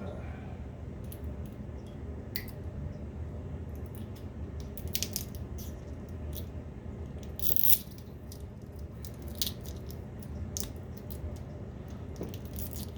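Scattered light clicks and clinks of small metal hand tools being picked up and handled, with a brief scrape or rustle about seven and a half seconds in, over a steady low hum.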